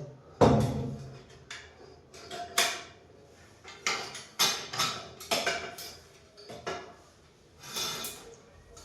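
Irregular metallic clanks and clinks of a washing machine stand's metal parts being handled and fitted, starting with a heavy knock about half a second in, followed by a dozen or so sharper separate clinks.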